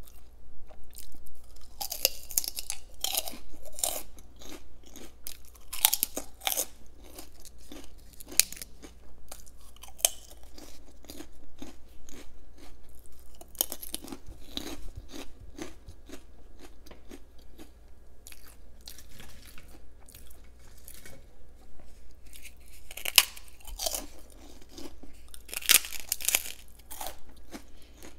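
A person biting and chewing crispy fried prawn crackers: clusters of sharp crunches with quieter chewing between them.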